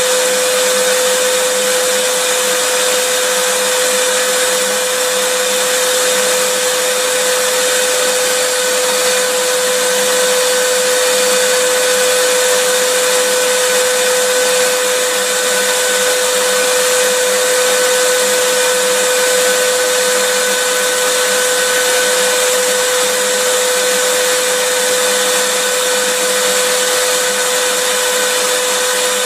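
Vacuum cleaner running steadily: an even rush of air with a steady motor hum that never changes in pitch or loudness.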